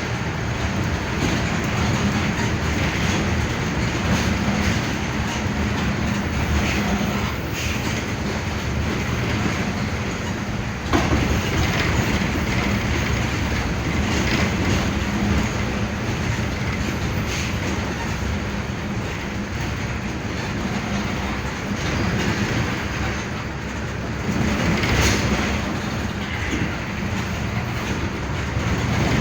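Mercedes-Benz OF-1519 Bluetec 5 bus heard from inside the cabin while under way: its front-mounted diesel engine runs steadily beneath continuous road and body noise, with a single sharp knock about eleven seconds in.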